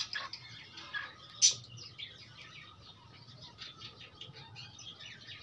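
Light, irregular tapping and scratching of young chickens pecking grain off a concrete floor, with faint bird chirps, and one louder sharp sound about one and a half seconds in.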